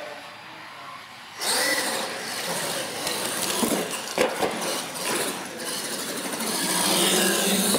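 Radio-controlled monster trucks launching down the track: motor and drivetrain whine with tyre noise on the concrete floor, starting suddenly about a second and a half in. A few sharp knocks come midway, as a truck bounds over a jump ramp and lands.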